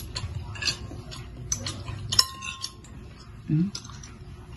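Metal spoon and fork clinking and scraping against a ceramic soup bowl while noodle soup is scooped up. About two seconds in comes one sharper clink that rings briefly.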